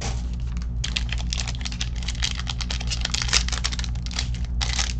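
Foil wrapper of a 2020 Topps Inception trading-card pack crinkling and tearing as it is opened by hand, a rapid crackle starting about a second in.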